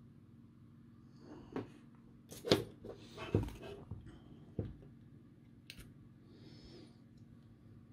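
A few short clicks and knocks from handling a calculator kit's circuit board, with its plastic keycaps fitted, while a DIP chip is pressed into its socket. The loudest knocks come about two and a half and three and a half seconds in.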